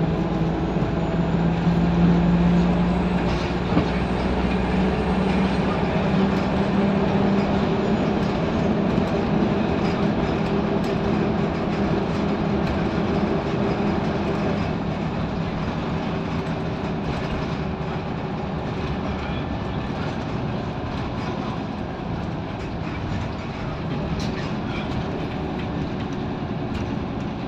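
Interior noise of a moving Scania L94UB Wright Solar single-deck bus: the diesel engine drones with a strong steady note that rises slightly over the first several seconds, then eases off, leaving an even road and running noise that slowly grows quieter.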